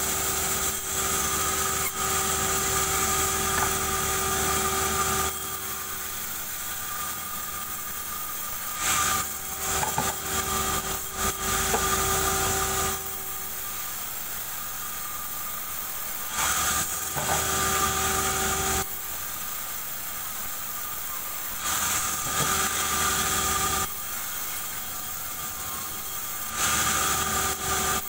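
Sawmill band saw ripping durian wood: about five loud passes of cutting noise as slabs are pushed through the blade, with the saw running steadily and more quietly between cuts.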